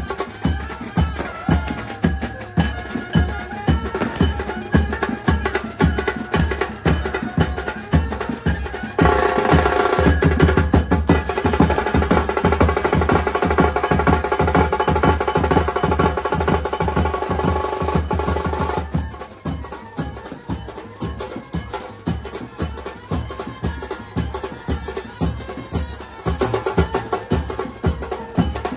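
Street brass band playing: bass drums and snare drums beat a fast, even rhythm. From about nine seconds in to about nineteen seconds, trumpets and saxophone play a melody over the drums and the band is louder, then the drums carry on with the horns quieter.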